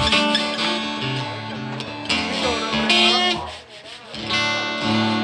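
Acoustic guitar strummed, its chords ringing; the sound dies down briefly about three and a half seconds in before a fresh chord is struck.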